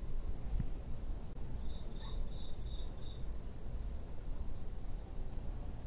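Night crickets chirring in a steady high-pitched drone, with a run of five short chirps about two seconds in.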